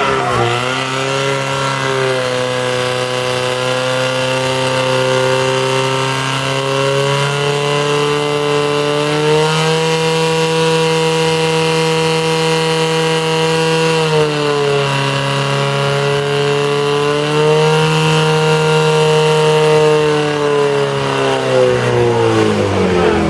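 Portable fire pump engine running hard at high revs while pumping water through the attack hoses, its pitch stepping up and down a few times as the throttle is worked, then winding down near the end.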